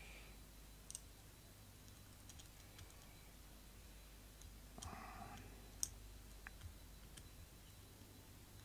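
Near silence broken by faint, scattered small clicks and taps of a wire being worked into the terminals of plastic panel indicator lights, the sharpest click about six seconds in.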